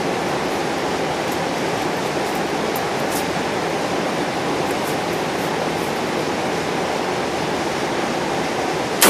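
A steady, even rushing noise with no rhythm, then a single loud rifle shot at the very end, from the AR-15.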